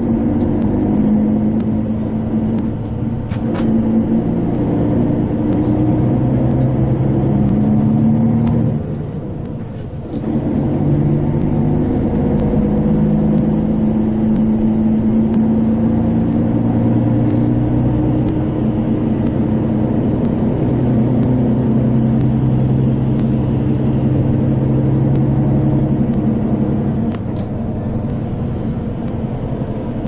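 Road vehicle's engine and tyre noise heard from inside the cabin: a steady drone whose pitch steps up and down as the vehicle speeds up and slows. It eases off briefly about nine seconds in and drops a little near the end.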